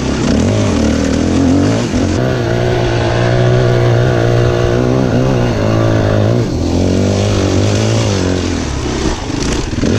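Single-cylinder dirt bike engine running under throttle as it is ridden, its pitch holding fairly steady, then dropping about six and a half seconds in and changing again near the end.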